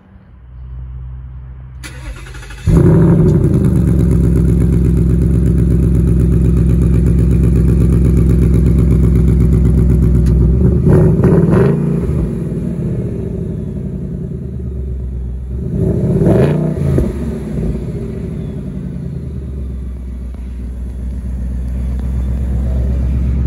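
A 2023 Ford Mustang GT's 5.0-litre Ti-VCT V8 is started from cold through its active-valve quad-tip exhaust. After brief cranking it catches loudly about three seconds in and settles into a steady idle. It is revved briefly twice, near the middle and again a few seconds later.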